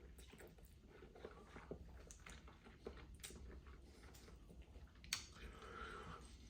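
Faint close-up chewing of a mouthful of hot and spicy instant noodles, with scattered small wet mouth clicks and a sharper click about five seconds in.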